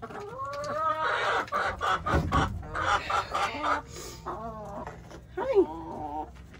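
Olive egger hen clucking and squawking as she is picked up and held, with a loud run of calls in the first half and shorter clucks near the end.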